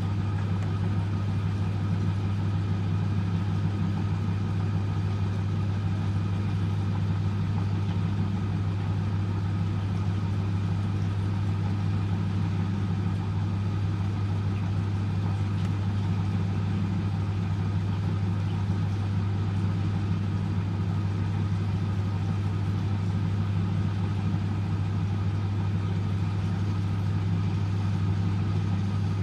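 1997 M eurotech EW 450 front-loading washing machine running steadily with a strong, even low hum, near the end of a 95 °C boil-wash cycle.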